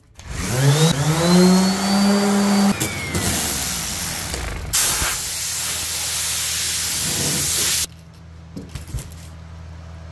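Electric random orbital sander with 120-grit paper starting up with a rising whine, running on the Bondo-filled seam and then switching off about three seconds in. Then a compressed-air blow gun hisses loudly for about three seconds, clearing the sanding dust. A steady low hum runs underneath.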